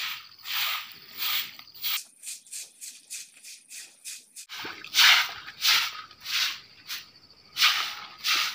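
A short broom scrubbing and sweeping water across a wet concrete floor in repeated swishing strokes, about three every two seconds. A quieter run of quick, short scrubbing strokes comes in the middle.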